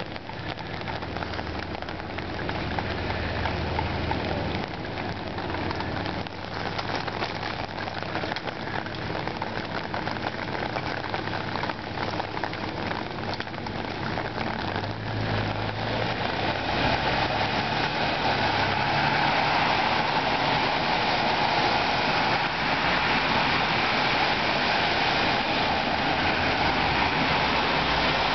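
Heavy rain falling on a flooded street while cars drive through the standing water, their tyres hissing and splashing. The noise is steady and grows louder about halfway through as the water spray gets nearer.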